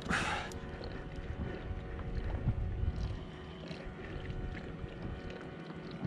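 Wind on the microphone and water moving against a plastic sit-on-top kayak, a steady low rumble with small knocks, opening with a short loud hiss.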